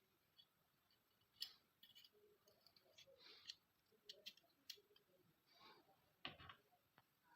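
Faint, scattered clicks and short scrapes of small parts being handled during work on a Glock pistol, with the loudest cluster about six seconds in.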